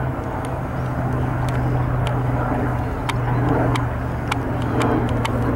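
Steady low engine drone with an even hum, broken by scattered short ticks.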